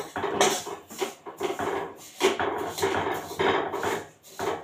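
A spoon scraping and stirring sesame seeds as they roast in a little ghee in a steel kadhai, in repeated strokes about twice a second.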